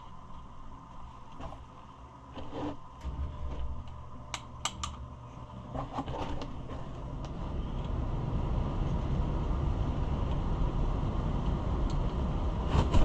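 Small metal parts and bolts clicking and clinking as a chainsaw is put back together by hand. From about halfway in, a steady low rumble builds up and becomes the loudest sound.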